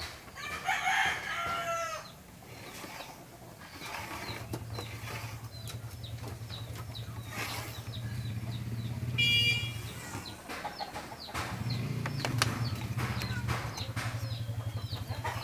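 Birds calling: a drawn-out call that falls in pitch about a second in, then many short repeated chirps and another bright call about nine seconds in. A steady low hum runs under them from about four seconds on, with a few sharp knocks.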